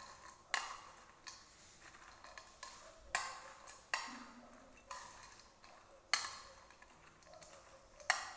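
Metal spoon stirring fried sweet corn kernels in a plastic bowl, clicking against the bowl at uneven intervals about once a second, with the kernels rustling faintly in between.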